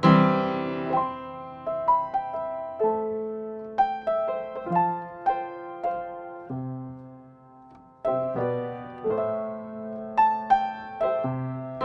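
Acoustic upright piano played in slow chords under a melody, each chord struck and left to ring down. The music fades almost away about two thirds of the way through, then a new phrase begins with a loud chord. Stereo recording from small condenser microphones, with no EQ or compression.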